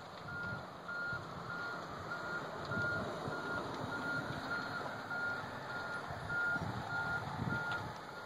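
A truck's reversing alarm beeping steadily, a single high tone repeated at even intervals, over a low, uneven rumble.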